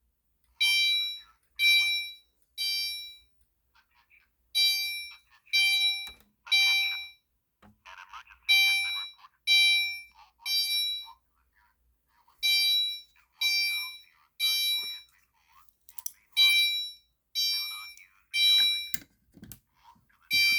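Fire alarm notification speaker sounding the Simplex evacuation tone in the temporal-three pattern: three short horn-like blasts about a second apart, then a pause, repeating about every four seconds. It is the sign of an activated pull station putting the panel into alarm.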